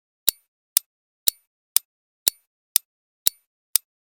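Countdown timer sound effect ticking: sharp, evenly spaced clock-like ticks, two a second, marking the seconds left to answer a quiz question.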